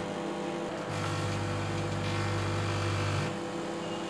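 Microwave oven running with a steady hum. A stronger low buzz comes in about a second in and drops out a little past three seconds.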